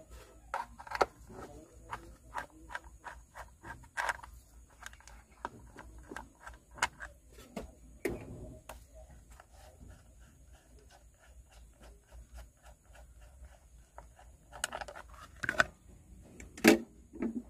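Light metallic clicking of a socket wrench working the small bolts of an engine cover, a run of quick clicks, then a few louder knocks and clatter near the end as metal parts are handled.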